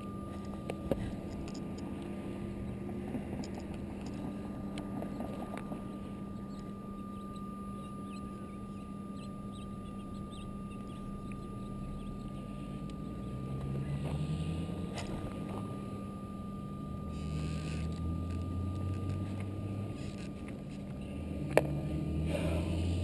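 Small two-stroke engine of a fuel-powered RC buggy idling steadily, with a sharp click near the start and a louder one near the end.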